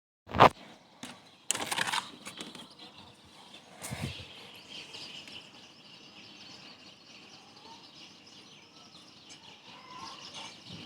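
Outdoor ambience: a steady hiss with faint bird chirps, after a loud sharp knock about half a second in and rustling bursts around two and four seconds.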